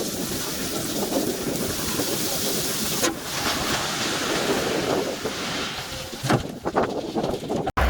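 A steady noisy rush like wind on the microphone, with no clear engine note, and a few sharp knocks near the end.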